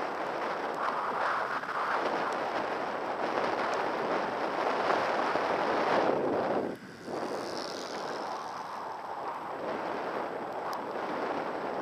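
Skis sliding over groomed snow on a downhill run, with wind rushing over the microphone: a steady rush of noise that drops away briefly about seven seconds in.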